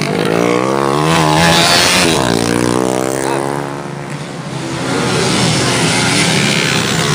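Motorcycle engine revving up and down as the bike runs around a dirt track, its pitch rising and falling with the throttle. It fades briefly about four seconds in, then grows louder again as the bike comes closer. The engine is being tested and is not taken flat out because of small problems.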